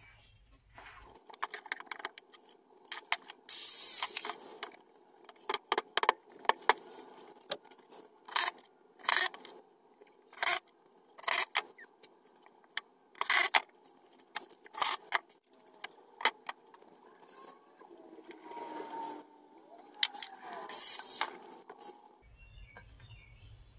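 A string of short, sharp work noises from hands and tools handling material, a dozen or more separate strokes, the longest two about 3.5 seconds in and near the end.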